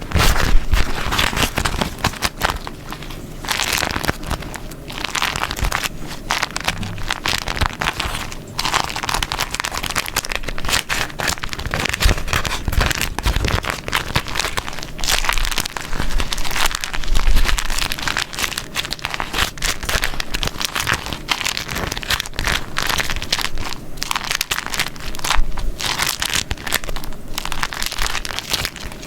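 Beeswax paper crumpled and folded by hand: a dense, irregular run of sticky crinkling and crackling that swells louder in a few stretches and then eases off.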